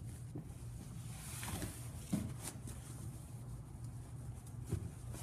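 Cargo parachute canopy fabric rustling and swishing as it is hand-folded into its deployment bag, with a few knocks against the table, the sharpest about two seconds in. A steady low hum runs underneath.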